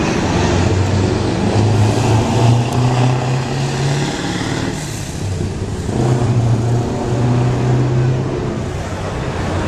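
Heavy truck diesel engine running under load, its note climbing over the first few seconds, easing off for about a second midway, then pulling strongly again.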